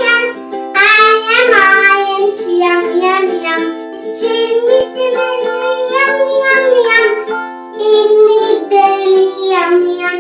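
A young child singing a nursery rhyme over light backing music.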